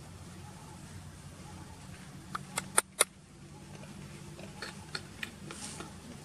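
A quick run of sharp clicks about halfway through, two of them loud and close together, then a few fainter ticks, over a steady low background hum.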